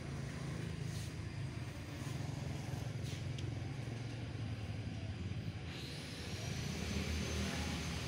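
Steady low hum of background traffic, with a hiss that swells about six seconds in.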